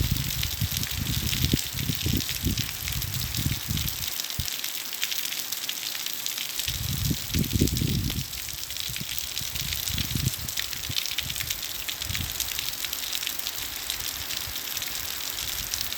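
Steady heavy rain, a dense hiss full of fine crackling drop impacts. Irregular low rumbles come and go underneath, with a quieter stretch around four to six seconds in.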